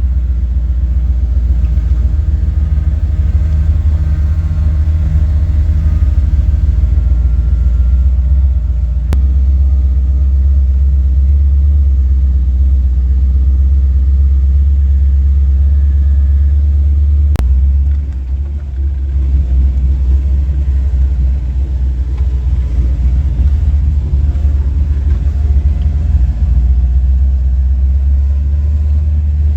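Jeep driving along, its engine running steadily under a heavy low rumble. There is a sharp click a little past halfway, followed by a brief dip in level.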